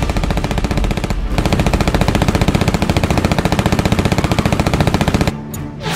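Machine guns of WWII fighter planes firing a long, rapid burst, about fifteen shots a second, with a short break just over a second in; the firing cuts off suddenly about five seconds in.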